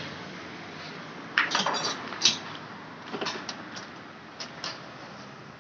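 Scattered light metallic clinks and knocks over a steady hiss, the loudest about one and a half and just over two seconds in.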